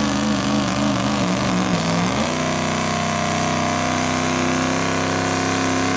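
Turbo-diesel pickup engine running flat out under heavy load while pulling a weight-transfer sled. Its note wavers up and down for the first two seconds or so, then settles into a steady, slightly higher drone.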